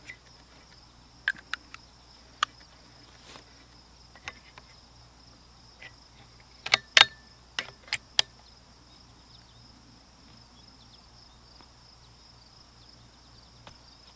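Steady high chirring of crickets, with a few light clicks in the first seconds and a cluster of sharp metallic clicks about halfway through as the bolt of a Browning X-Bolt rifle is worked.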